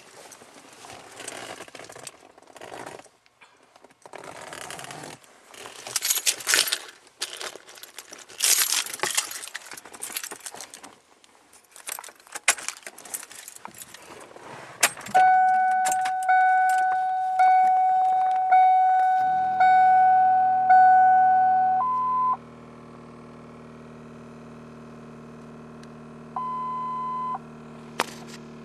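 A bunch of keys jangling and rattling in the hand. Then a car's warning chime sounds about once a second for several seconds. About 19 s in, a steady low hum comes on and carries on, broken by two short higher beeps.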